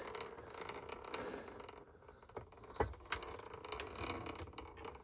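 Antique Rival No. 2 cast-iron apple parer cranked slowly by hand, its gears and linkage giving faint, scattered clicks, with a few sharper ticks in the second half. This is a slow test turn to check that the slicer arm now clears the peeler blade.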